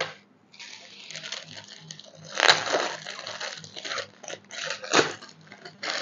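Thin plastic packaging crinkling and rustling as baby clothes are unwrapped, in irregular crackles with louder ones about two and a half seconds in and again near five seconds.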